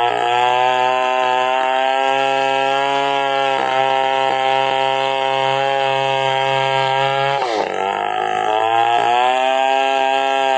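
Stihl chainsaw running at high revs while ripping an angsana log lengthwise into planks. Its pitch sags under load and recovers twice, slightly a third of the way in and more deeply about two-thirds in.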